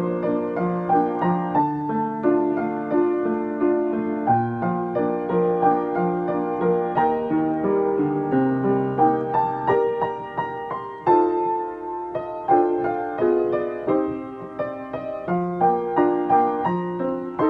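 Background music: a gentle piano melody over a steady accompaniment.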